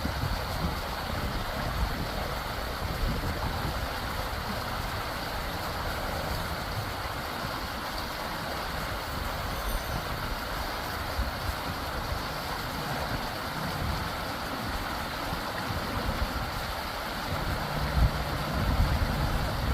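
Creek water running steadily, with wind buffeting the microphone as a low, uneven rumble that gets stronger near the end.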